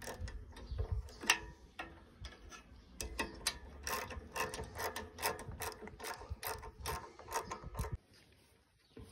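Ratcheting combination wrench clicking in quick, irregular runs, working the bolts of a baler piston's new fiber slide rail. The clicking stops about eight seconds in.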